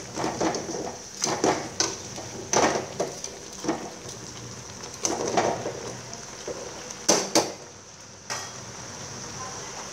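Whole chicken sizzling in oil and sauce in an aluminium wok, with metal tongs clanking and scraping against the pot as the bird is turned. The clanks come in a cluster over the first eight seconds, then only the steady sizzle carries on.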